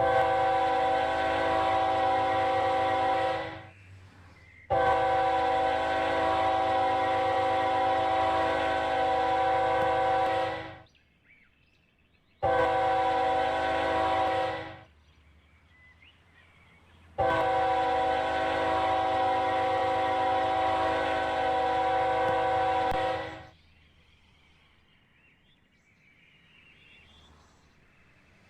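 Diesel locomotive air horn sounding the grade-crossing signal: two long blasts, a short one, then a final long one, each a loud multi-note chord, the mark of a train approaching a road crossing.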